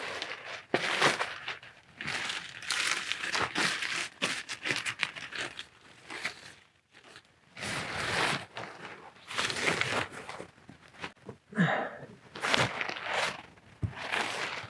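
Tent fabric rustling and crinkling in irregular bursts as the inner tent is handled and hooked onto the flysheet of a Berghaus Cheviot 2 tent.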